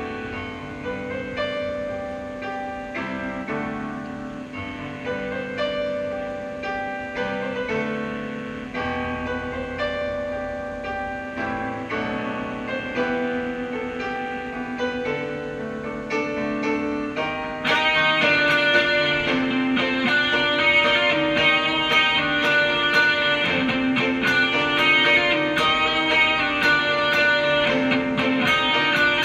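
Stratocaster-style electric guitar playing a melody over sustained lower accompanying notes. About 18 seconds in, the playing gets louder and busier, with fast picked notes.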